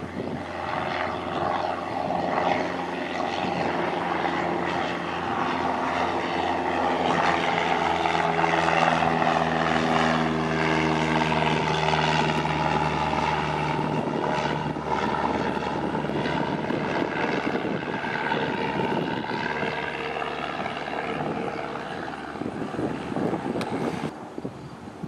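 A 1981 Cessna 172 Skyhawk's four-cylinder Lycoming engine and propeller run at full power as the plane climbs out on a go-around after an aborted landing. The drone grows louder as the plane passes overhead, drops in pitch as it goes by, and fades toward the end.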